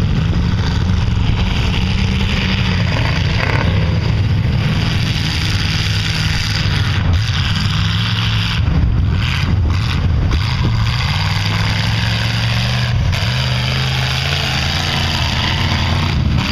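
Pickup truck's engine revving hard as it ploughs through a mud bog, wheels spinning and throwing mud; the engine pitch rises and falls over a steady rush of spray.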